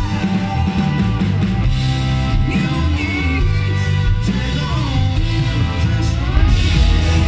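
Live rock band playing on stage: electric guitar, bass guitar and drums, with a woman singing long held notes.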